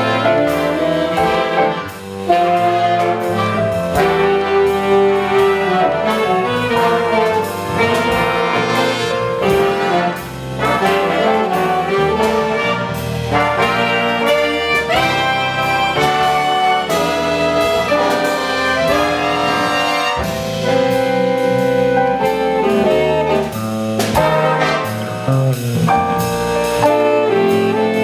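Jazz big band playing live: a saxophone section, trumpets and trombones over drum kit and electric bass.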